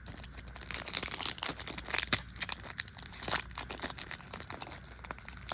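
A trading-card pack wrapper being crinkled and torn open by hand: a rapid, irregular crackle.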